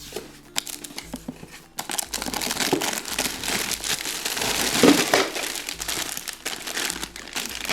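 Packaging crinkling and rustling as a toy set's box is unpacked by hand, a few scattered rustles at first and then a dense, continuous crackle from about two seconds in.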